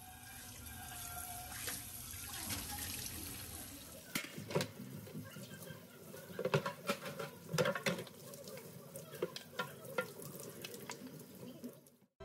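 Tap water running into a stainless steel kitchen sink while dishes are rinsed under it. From about four seconds in, pans and wooden utensils knock and clink against each other and the sink.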